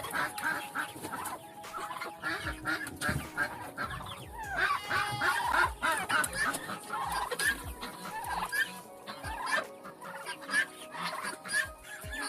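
Chickens clucking, with short rising and falling calls, over many small ticks and taps throughout as they pick through a bucket of mealworms.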